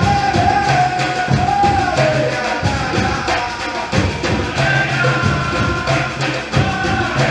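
Percussion ensemble drumming a steady rhythm on hand drums, with deep bass-drum notes and a voice singing over the drumming.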